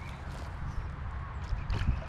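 Wind buffeting the microphone as a steady low rumble, with a few light clicks and rustles near the end.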